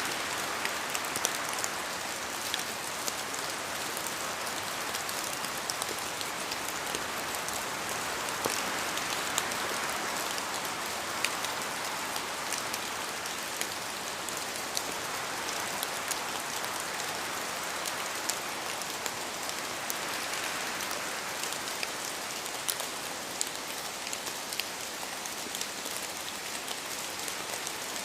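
Steady rain falling on a surface, an even hiss with many individual drops ticking throughout.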